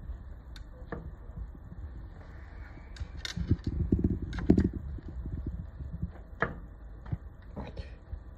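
Scattered light clicks and taps of metal tools against the metal feed mechanism of an industrial sewing machine as parts are handled and adjusted, with a cluster of louder knocks near the middle.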